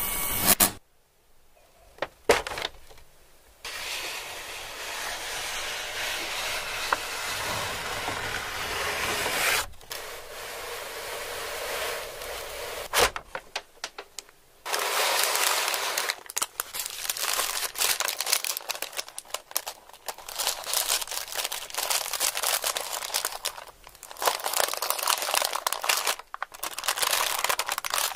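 A package wrapper crinkling as hands handle it, in long stretches broken by a few short pauses.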